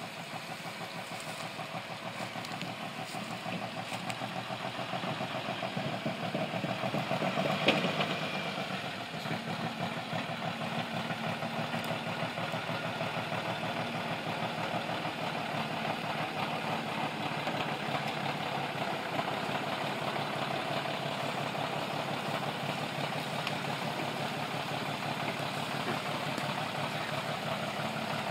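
Praga V3S truck's air-cooled Tatra six-cylinder diesel running as the log-laden truck crawls closer over rough ground, growing louder over the first eight seconds. There is one sharp knock about eight seconds in, and the engine then runs steadily.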